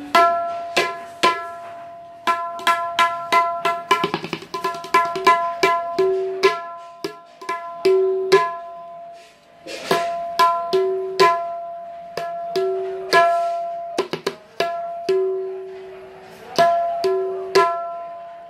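Tabla dayan (right-hand drum) played with the fingers: single strokes, and a quick run about four seconds in, each ringing on in a clear, sustained pitch. A tabla maker is sounding the drum to show its tone and sustain.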